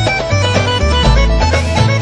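Instrumental background music: a melody over a bass line that steps from note to note.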